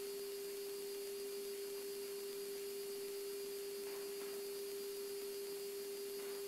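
Steady electrical hum at one fixed pitch over faint hiss in the cockpit audio feed, typical of the airliner's 400-cycle AC power leaking into the intercom line.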